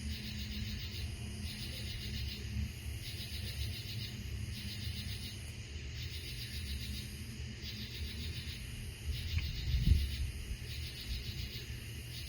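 A chorus of night-singing insects, taken for cicadas, gives a rhythmic pulsed buzz in phrases about a second long, one every second and a half or so. Under it runs a low rumble, and a single louder thump comes about ten seconds in.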